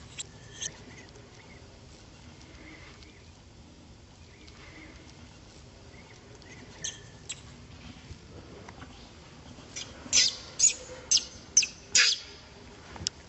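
Baby long-tailed macaque crying in short, high-pitched distress squeals as an adult pulls at it. A few scattered squeals come first, then five loud ones in quick succession near the end.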